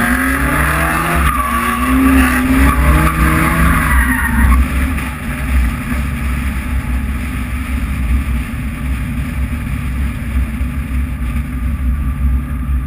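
Drift car's engine revving up and down with tyre squeal for the first four or so seconds, then running steadier as the squeal stops, over a constant low rumble.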